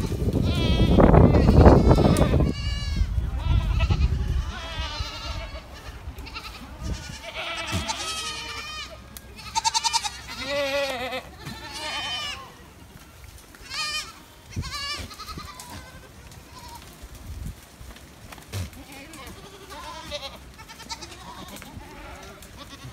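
A large goat herd bleating, many overlapping wavering calls, busiest in the first half and thinning to scattered calls near the end. A loud low rumbling noise sits under the calls for the first two or three seconds.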